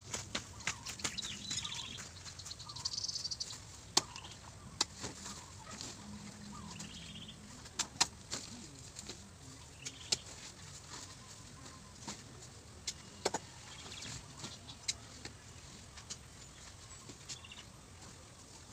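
Scattered sharp snaps and crackles of leaves and plant stems being handled and stepped on in a garden plot, with birds chirping here and there.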